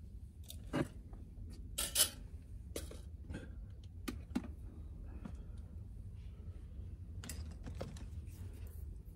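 Scattered light clicks and clatter of small tools and parts being handled, loudest about two seconds in, over a low steady hum.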